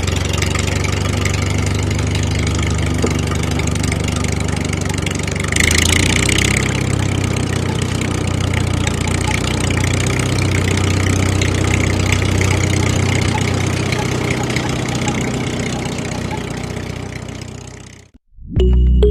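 Small engine of a DIY mini tractor running steadily with a low hum, with a brief louder hiss about six seconds in. The sound fades out near the end.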